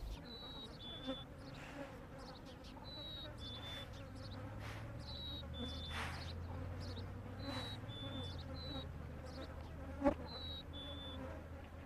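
Turkey vultures hissing at each other as a warning: brief, faint breathy hisses a second or two apart. Behind them a bird repeats a high two-note whistle, the second note a little lower, every two to three seconds, over a low steady buzz.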